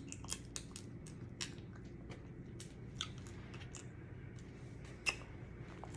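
Person chewing and crunching on blue crab, with scattered sharp clicks, the loudest about five seconds in.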